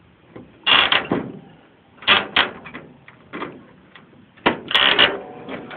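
A series of metallic clunks and knocks from the hood of a 1982 Oldsmobile Ninety-Eight being unlatched and raised to show the engine. The loudest clunks come about a second in and near the end.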